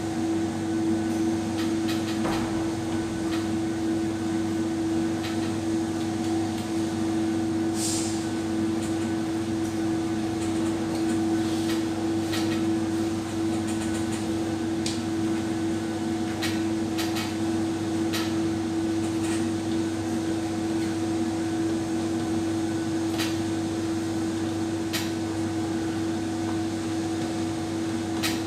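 A steady electrical or mechanical hum on one constant pitch, with scattered light clicks and knocks over it.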